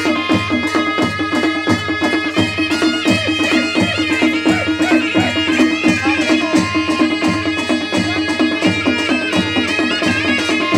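Nepali folk dance music of the Magar style: a steady drum beat of about one and a half strokes a second under a held drone and a reedy melody.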